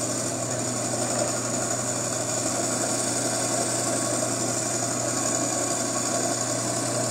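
Gryphon C-40 diamond glass band saw running steadily while its water-cooled blade grinds through a sheet of glass, giving a constant low hum with a thin high whine above it.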